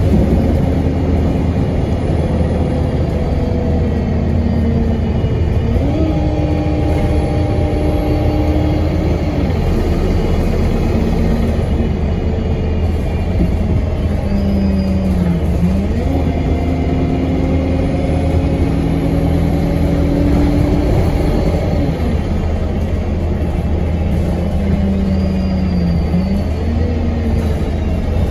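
Cabin sound of a 2017 Alexander Dennis Enviro 200 MMC single-deck bus on the move: a steady low engine rumble with a droning whine that rises and falls in pitch several times as the bus speeds up, changes gear and slows.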